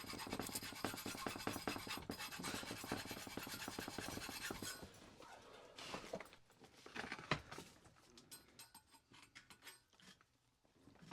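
A hand file scraping over the welded metal joint of a rake to take off the sharp edges. The scraping stops about five seconds in, followed by a few light knocks and one sharp tap.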